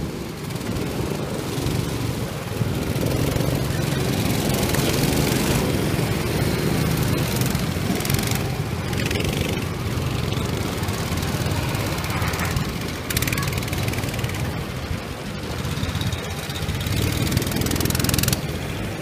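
Go-kart engines running as several karts drive around and past, the drone swelling and easing with the throttle.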